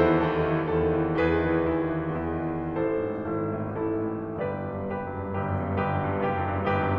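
Background music: slow, gentle piano, chords struck every second or two and left to ring.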